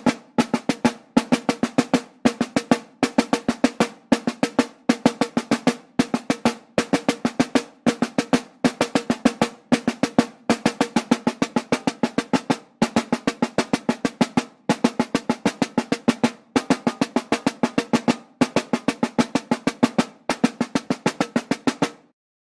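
Music soundtrack: a fast drum pattern of rapid snare-like strikes in short clusters, repeating about once a second over a steady low tone. It cuts off suddenly near the end.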